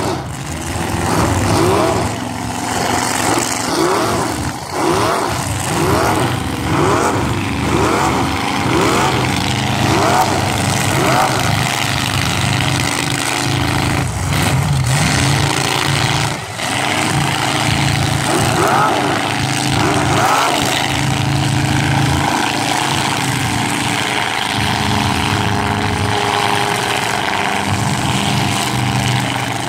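Several demolition derby cars' engines running and revving at once. For the first dozen seconds the pitch repeatedly climbs and drops as the drivers rev, then it settles into a steadier drone.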